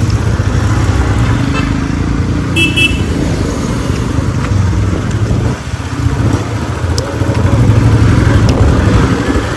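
Motorcycle engine running steadily with a low rumble as the bike rides off.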